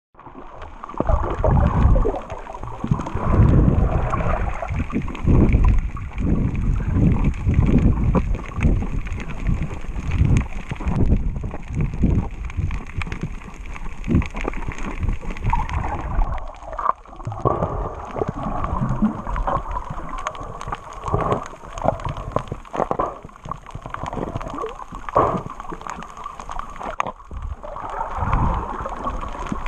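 Water sloshing and gurgling around a camera at the surface while snorkeling, in irregular uneven surges.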